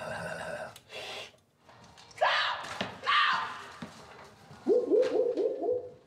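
A man's wordless vocal warm-up: sustained voiced tones, swooping slides in pitch, and near the end a quick run of short repeated notes.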